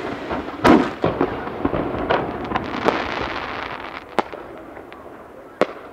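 Aerial firework shells bursting: a loud boom, then a dense crackling of many small pops that dies away, with two single sharp bangs near the end.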